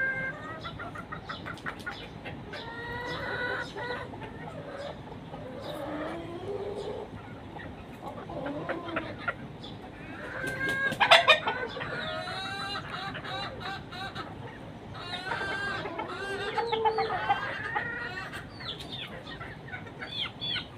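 Chickens clucking and calling over and over, with a loud burst of squawking about halfway through. The calls are the noise chickens make when they sense danger.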